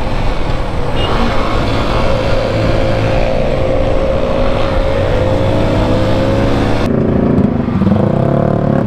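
Motorcycle engine running at a steady cruising pace, with wind rushing over the on-bike camera's microphone. About seven seconds in the sound cuts abruptly to a lower, slower engine note among motorcycles stopped in traffic.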